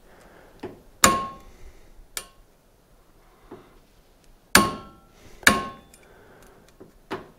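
Sharp metallic clicks with a short ring, three loud and two softer, from a click-type torque wrench loaded with a hanging 50-pound weight while its handle is adjusted for calibration.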